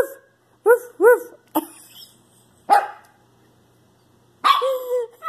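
A small chihuahua-type puppy barking in high, short yips: three quick barks in the first second or so, then two sharper single barks, and a longer drawn-out call near the end.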